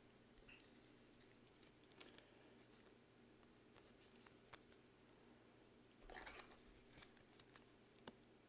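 Near silence with faint handling noise from trading cards shuffled in gloved hands: a few soft clicks and a brief rustle about six seconds in.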